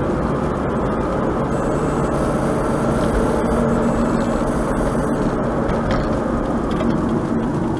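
Steady tyre and engine noise of a car driving at highway speed, heard from inside the cabin.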